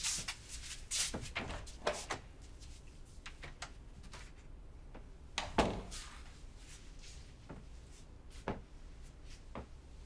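Scattered soft household knocks and rustles in a small room: a door being handled at the start, then light footsteps and clothing rustles, with one louder thump about five and a half seconds in.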